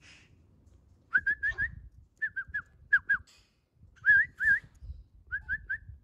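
A person whistling short, clear notes in five quick runs of two to four, to call a small parrot onto an outstretched hand.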